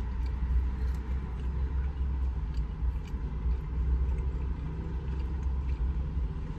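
Steady low rumble of a running car heard from inside the cabin, with faint small clicks and chewing from eating.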